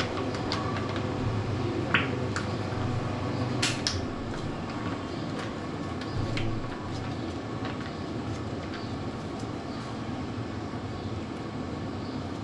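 A few sharp clinks and knocks of kitchen utensils and containers being handled during food preparation, the loudest about four seconds in, over a steady low hum.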